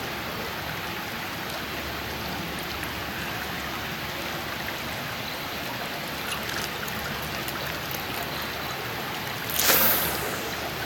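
Steady rushing of flowing river water, with a brief louder rush of noise near the end.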